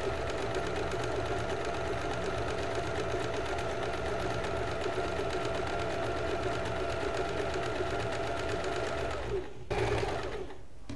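Usha Janome Fashion Maker electric sewing machine running steadily while sewing a decorative embroidery stitch, stopping about nine seconds in. A short noise follows.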